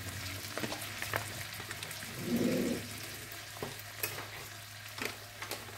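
Coconut milk sizzling and crackling in a hot wok, with scattered pops over a steady hiss. A brief low hum sounds about two seconds in.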